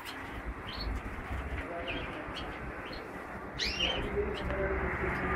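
Caged house finches and other small cage birds chirping: scattered short chirps over a steady background hiss, with a louder sweeping call a little after the middle.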